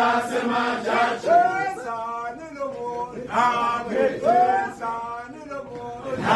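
A group of men singing a Zulu chant together, their voices in unison on long held phrases.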